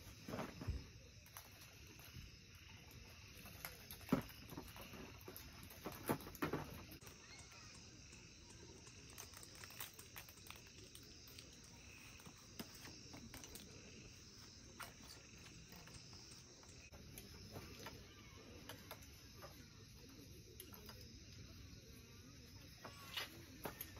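Faint night insects, crickets, chirping steadily, with a few knocks and clatters from camping gear being handled. The loudest knocks come about four and six seconds in and again near the end.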